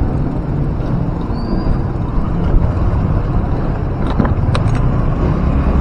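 Steady low rumble of road and wind noise from a bicycle riding along a street, with a few light clicks or rattles about four seconds in.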